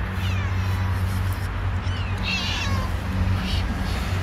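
Calico cat meowing a few times in short, high-pitched mews, the loudest about halfway through, begging for food. A steady low hum runs underneath.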